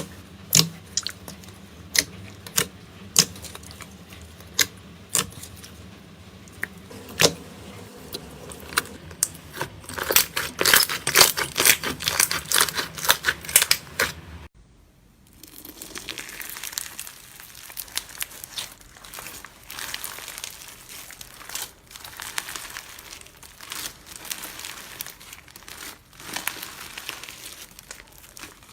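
Slime being squeezed and pressed by hand, giving sharp wet pops and clicks that crowd together into rapid crackling. About halfway in, a cut brings a softer, denser crackle of slime being worked.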